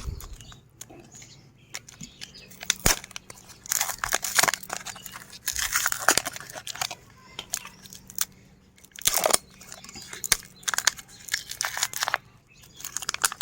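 Meat grinder crushing mini ice cream cones: irregular bursts of crunching and crackling over a faint steady hum.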